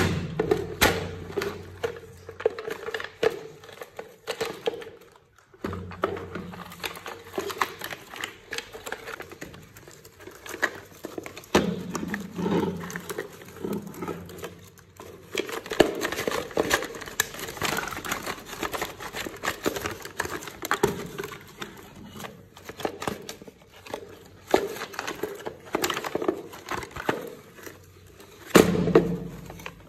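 A bagged set of plastic sand toys being handled: irregular crinkling and rustling of the plastic mesh net bag, with clicks and light knocks of the hard plastic pieces against each other.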